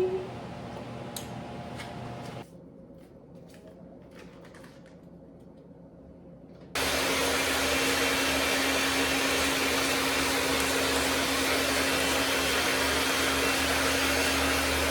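After a few quiet seconds with small clicks, an electric mixer switches on about halfway through and runs steadily at one speed, beating a pie filling.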